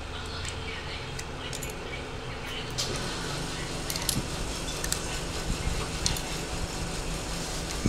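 Irregular small clicks and taps of a Nokia 206 phone's plastic back cover and battery being handled and fitted by hand, starting about three seconds in, over a steady low hum.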